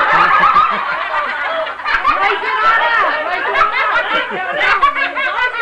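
Several people laughing together, with overlapping chatter and giggles.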